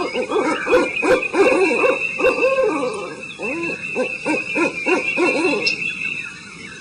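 Many birds calling at once: dense, overlapping low hooting calls that rise and fall in pitch, over a steady high tone.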